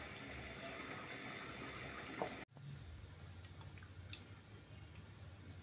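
Pot of beef meatball curry simmering with faint bubbling. It cuts off suddenly about two and a half seconds in, leaving quiet room tone with a few small clicks.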